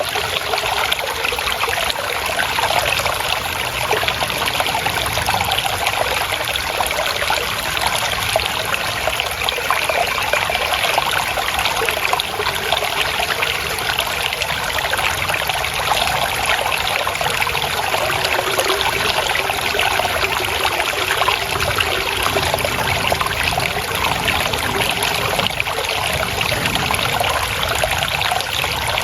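Water trickling and babbling steadily, an even, unbroken splashing flow.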